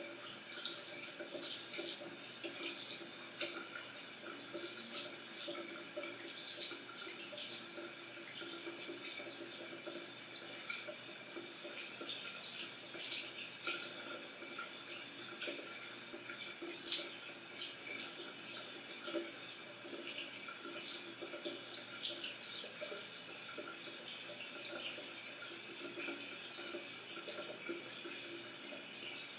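Locker room shower running steadily: a constant hiss of water spray with small irregular spatters and drips.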